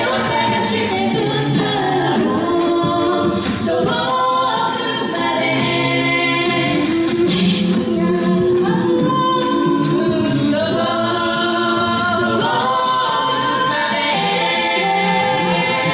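Mixed six-voice a cappella group singing a pop song in harmony through stage microphones, with no instruments.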